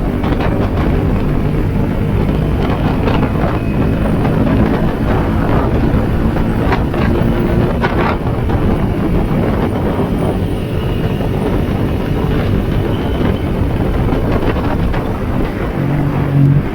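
Yamaha Sniper 150's single-cylinder four-stroke engine running while the motorcycle is ridden along the road, with wind noise on the microphone.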